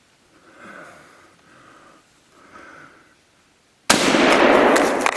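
A few faint breaths, then about four seconds in a single loud gunshot fired at a deer, its report trailing off over the next second.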